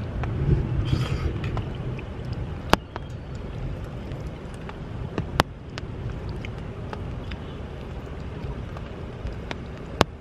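Wind buffeting the microphone in a steady low rumble, with a few sharp clicks of a metal fork against a plate, the clearest three spaced a few seconds apart.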